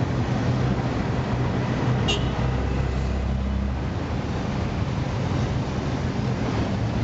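Auto-rickshaw (bajaj) engine running steadily under way with road noise, heard from inside the open cab. A brief high squeak comes about two seconds in.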